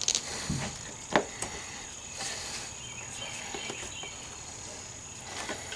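Faint handling noises as a rubber hose is pushed back onto its fitting on a Honda CRF250L motorcycle, with a sharp click about a second in.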